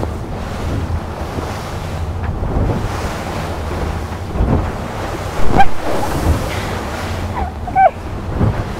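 Wind buffeting the microphone and seawater rushing and splashing as a boat's bow pushes slowly into head-on waves. A louder splash of spray comes about five and a half seconds in.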